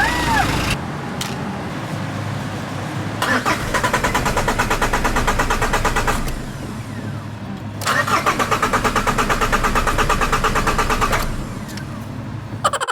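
Peugeot Partner van's starter cranking the engine in two long bursts of about five even turns a second, with a steady hum in the pause between. The engine does not catch: a car that cranks but won't start.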